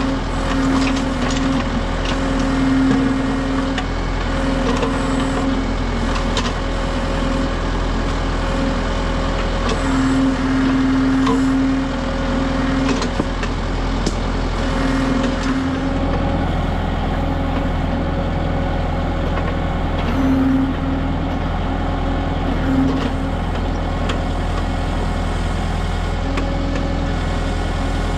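Kubota M6060 tractor's diesel engine running steadily under the backhoe, with a hydraulic whine that comes and goes in stretches of a second or two as the backhoe is worked. Scattered sharp clicks and knocks, typical of the bucket scraping rock.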